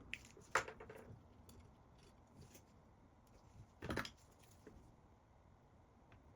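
Faint room tone with a few soft clicks and taps, the loudest about four seconds in.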